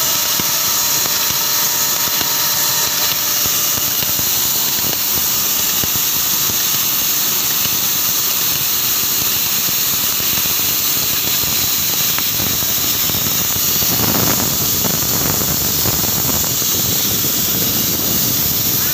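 A steady, loud hiss, strongest high up, with a rougher, lower rush for a couple of seconds near the end.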